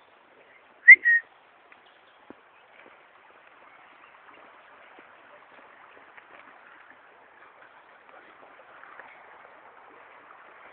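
A person whistles a short two-note call to a dog about a second in: a quick upward swoop followed by a brief held note. After it there is only a faint steady hiss.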